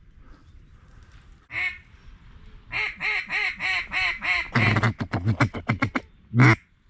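Mallard duck call blown by a hunter: a single quack, then a string of about seven quacks, then a fast feed chatter of short clucks, and one last quack near the end.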